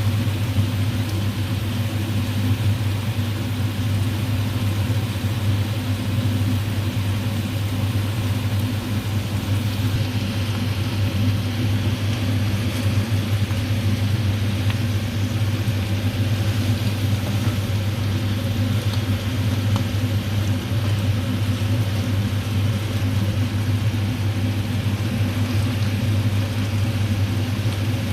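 A steady low mechanical hum with a constant hiss above it, unchanging throughout.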